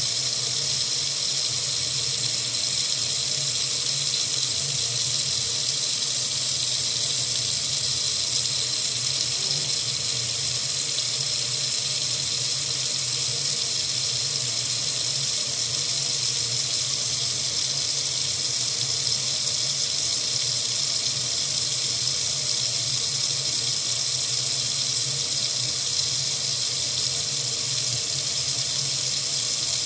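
Water tap running into a sink in a steady, unchanging stream, a constant hiss.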